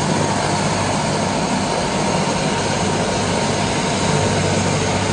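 Loud, steady engine-like noise with a constant low hum, unchanging throughout.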